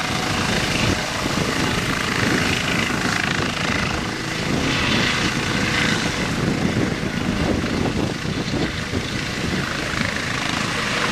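Eurocopter EC135 helicopter hovering low and starting to move off. Its twin turbine engines give a steady whine over the continuous beat of the main rotor and the ducted Fenestron tail rotor.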